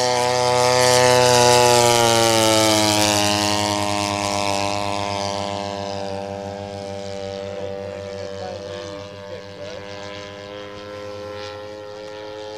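Engine of a large radio-control model warplane flying past. It is loudest about a second in, its pitch drops as it passes, and it then runs steadily and fades as the plane flies away.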